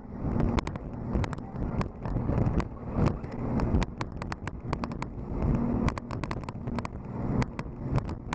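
Jet boat running at speed, heard as an uneven noise of wind and water rush, with many sharp ticks from spray drops hitting the microphone.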